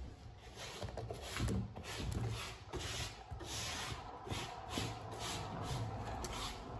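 Rhythmic rubbing or scratching strokes, about two or three a second, with a few soft low thumps among them.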